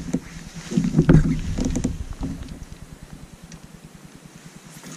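Water lapping and small knocks against the plastic hull of a Hobie Outback fishing kayak, louder in the first two seconds and quieter after.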